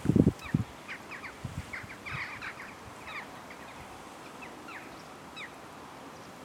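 Birds calling: many short, falling calls, several a second, thinning out and stopping about five seconds in. A few low thumps in the first two seconds, the loudest right at the start.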